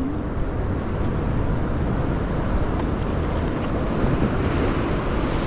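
Strong wind buffeting the microphone: a steady, rough rumble, with a brighter hiss coming in near the end.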